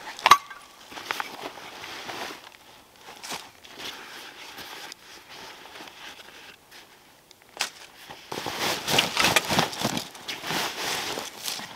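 Rustling and handling of a canvas backpack and gear as rope and items are stuffed in and strapped on, with a sharp click just after the start and another short click later. The rustling grows denser near the end.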